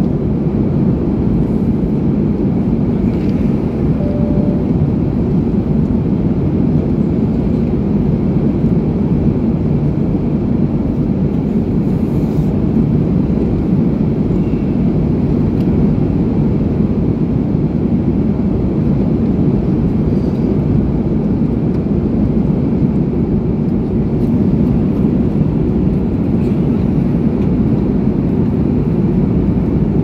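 Steady low roar inside a jet airliner's cabin in flight: engine and airflow noise heard at a window seat.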